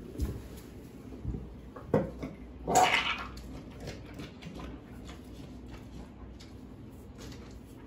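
Rottweiler with gastroenteritis retching and vomiting: a few low heaving thuds, then about three seconds in a loud, wet gush as it brings up liquid vomit onto the tiled floor. Fainter clicks follow.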